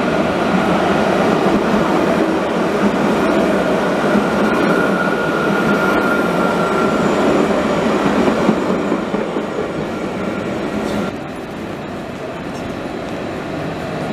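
Jerusalem Light Rail tram (an Alstom Citadis) running along street track and passing close by, a steady rail rumble with a thin high whine for a few seconds in the middle. About eleven seconds in the sound drops suddenly to a quieter tram running farther off.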